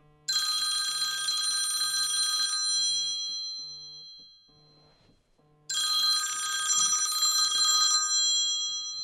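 Mobile phone ringing with a bright, bell-like ringtone in two bursts of about three seconds, the first dying away before the second, with a low buzz pulsing under it.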